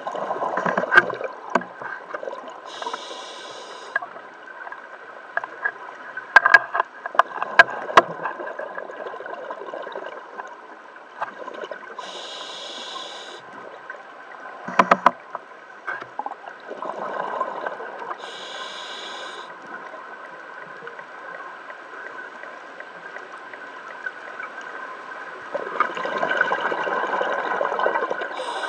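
Scuba diver breathing through a regulator underwater: a short hissing inhalation every several seconds and a rush of exhaled bubbles between them, over a steady hum, with a few sharp clicks.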